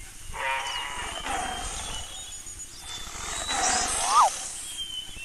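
Two animal calls, one about half a second in and a louder one near the end, over a steady high-pitched background tone.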